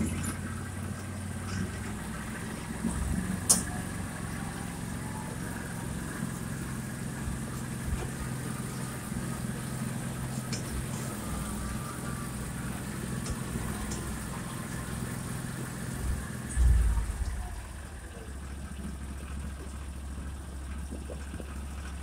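2020 Argo Frontier 6x6 amphibious ATV's engine running steadily as it drives over grass. Near the end there is a short loud low thump, after which the engine settles to a steady idle.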